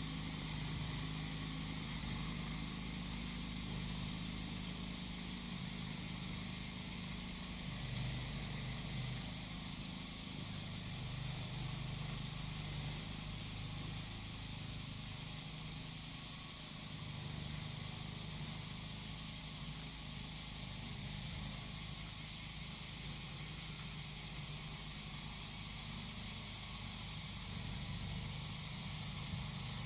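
Small engine of a grass-cutting machine running steadily, with cicadas droning in a steady high chorus over it.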